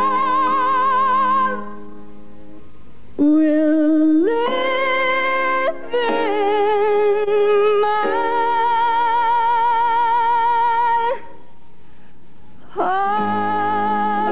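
A woman sings a slow ballad solo over soft accompaniment, holding long notes with a wide vibrato. She sings three phrases, with two short breaks between them where only the quieter backing goes on.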